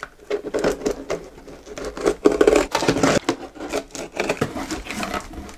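Utility knife slitting the packing tape on a cardboard shipping box, an irregular scratchy cutting and rasping of blade on tape and cardboard that is busiest about halfway through.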